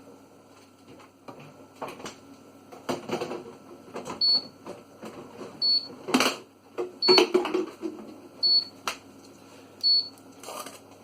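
Fridge door-open alarm beeping, a short high beep about every second and a half starting about four seconds in, the signal that the fridge door has been left open. Around it come the irregular rubbing and knocking of the fridge being cleaned, with one louder knock near the middle.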